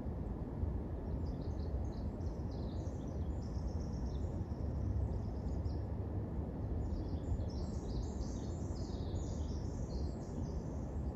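A small songbird singing two long runs of rapid, high-pitched chirps, the second starting about seven seconds in, over a steady low background rumble.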